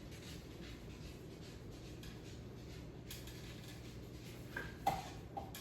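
Faint scratching and rubbing of handling on a wooden board while it is measured, with a couple of small clicks near the end.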